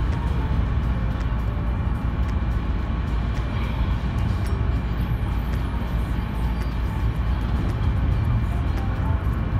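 Steady low rumble of road or rail noise heard from inside a moving vehicle.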